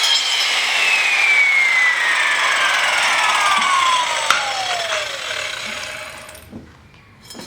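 Power saw winding down just after a cut through steel angle: a whine falling steadily in pitch over about five seconds under a fading hiss, with a sharp click about four seconds in.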